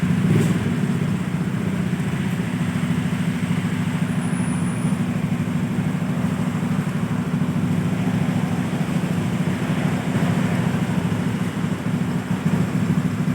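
Honda Scoopy scooter's single-cylinder engine idling steadily while warming up, an even low pulsing with no revving.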